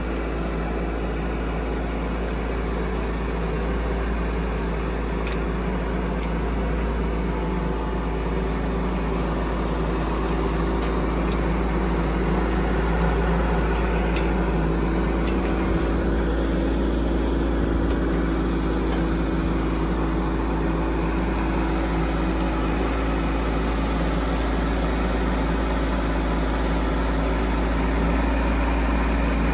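Bobcat E10 micro excavator's small diesel engine running steadily, growing a little louder as the machine moves closer.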